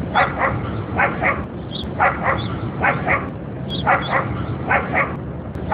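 Dog barking or yipping in quick pairs, about one pair a second in an even, repeating rhythm, over a steady low hum.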